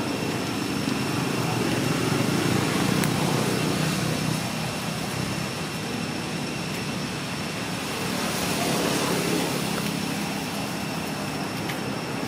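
Low rumble of a distant vehicle engine, swelling twice, over a steady background hiss with a thin, steady high tone.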